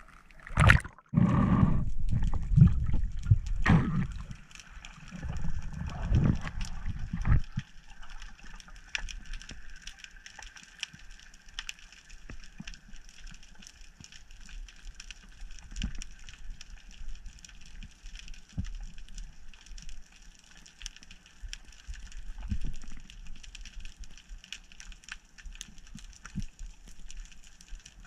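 Water splashing and gurgling as a spearfisher dives from the surface, loudest in the first seven seconds. After that, the faint crackle of many small ticks over a steady hiss, heard underwater.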